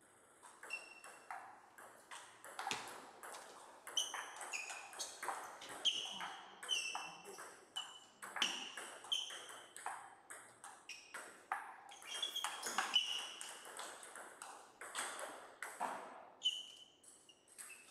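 Table tennis ball struck back and forth by rubber-faced paddles and bouncing on a Donic table in a rally: a long run of sharp, ringing pings and clicks, a few a second.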